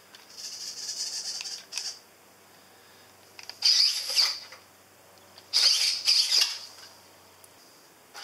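Servos of a 3D-printed robot arm whirring in bursts of about a second as the arm lifts and swings back over the tracked base. The later two bursts are the loudest.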